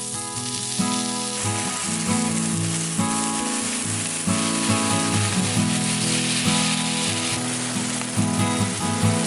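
Background music with steady chords over the even hiss of heavy rain.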